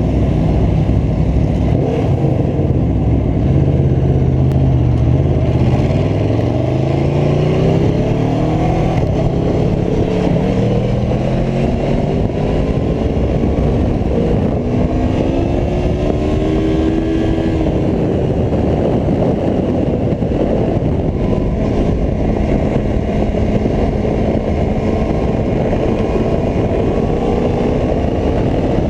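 Aprilia Tuono V4 1100 RR motorcycle's V4 engine running hard on track, its pitch rising and falling over and over as it accelerates and changes gear.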